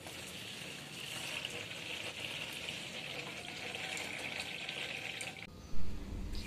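Water from a garden hose pouring into a plastic drum that is partly full, a steady splashing hiss. It cuts off abruptly about five and a half seconds in, and a short bump follows.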